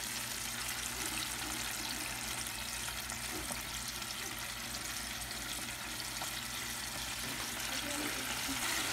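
Floured chicken wings deep-frying in vegetable oil in a Fry Daddy electric deep fryer: a steady bubbling sizzle with fine crackling. The oil is still bubbling at a good pace, the sign that it is holding its frying temperature.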